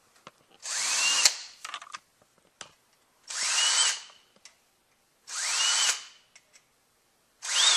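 Hand-held power drill run in four short bursts about two seconds apart, each a whine rising in pitch as the motor spins up, with small clicks between bursts. The bit is chamfering the edges of holes freshly drilled in a transmission valve body separator plate.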